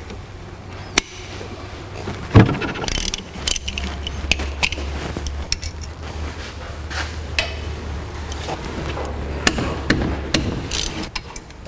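Hand tools working on the brake caliper's slide bolts during removal: scattered metal clinks and knocks, the loudest about two and a half seconds in, over a low steady hum.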